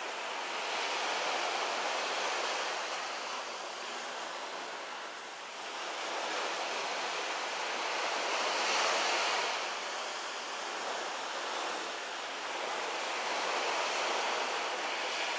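Waves washing on the shore, a steady rush that swells and fades every five to seven seconds.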